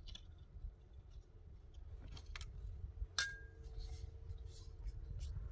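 A few light clinks of small hard objects knocking together; the loudest, about three seconds in, rings briefly.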